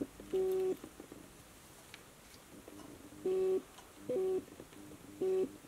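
A short, steady tone sounding four times at uneven gaps, each lasting about a third to half a second.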